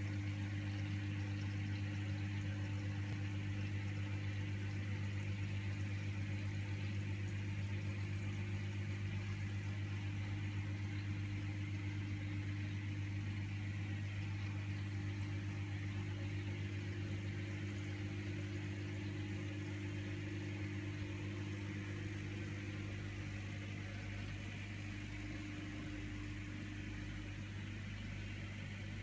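Aquarium pump running with a steady low electric hum, over a faint hiss of water and rising air bubbles; the hum gets slightly softer near the end.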